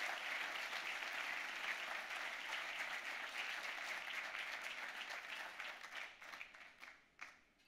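Audience applauding steadily, thinning to a few scattered last claps about six seconds in and dying away near the end.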